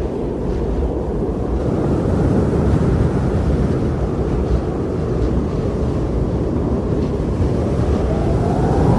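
Strong blizzard wind blowing hard and steadily, a deep rushing noise that swells in gusts. A whistling howl rises in pitch near the end.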